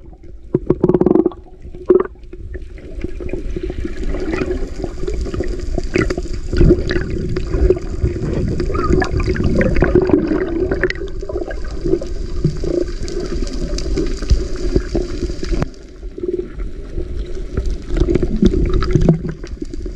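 Muffled underwater noise picked up by a submerged action camera: a steady low rumble of moving water with scattered small clicks and knocks, dipping briefly about 16 seconds in.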